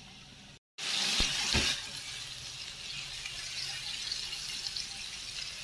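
Water running from a kitchen tap into a sink, a steady rushing, with two knocks about a second and a half in.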